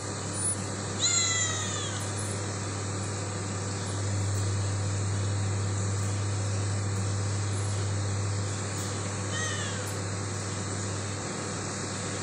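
Domestic cat meowing twice: a clear meow falling in pitch about a second in, and a fainter one later, over a steady low hum.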